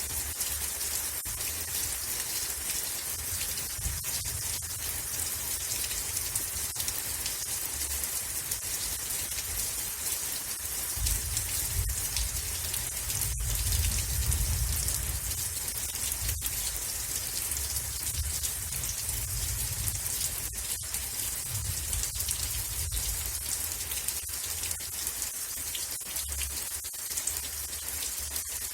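Steady rain falling, a dense even patter of drops, with a low rumble underneath that swells for a few seconds about halfway through.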